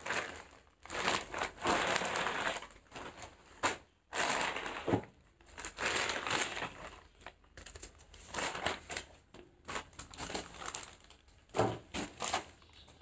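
Plastic courier mailer bag crinkling and rustling as it is handled and torn open and a cardboard box is slid out, in irregular bursts with short pauses.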